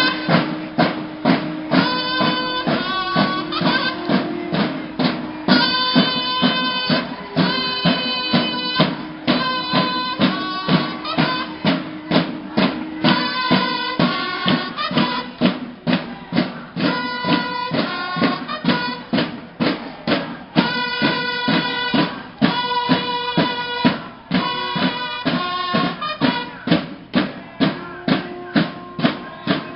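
Music with a steady drumbeat of about two beats a second, with held tones over it.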